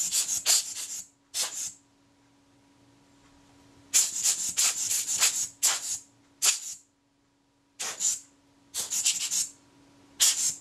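About eight short bursts of hissing, rubbing noise, with a pause from about two to four seconds in, as the camera's top cover is cleaned.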